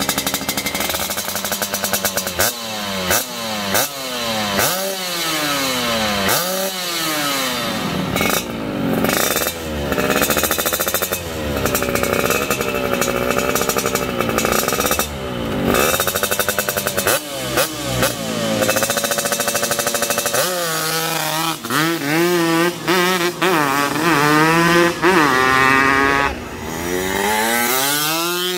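Yamaha RX-King two-stroke single-cylinder engine through a BKJ Proseries stainless exhaust, revved repeatedly at standstill, the revs rising sharply and falling back each time. Later the bike is ridden, its revs climbing and dropping over and over.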